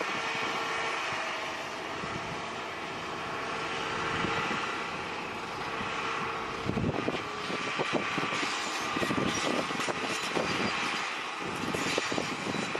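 A heavy machine's engine running steadily, with irregular knocks and rattles from about seven seconds in.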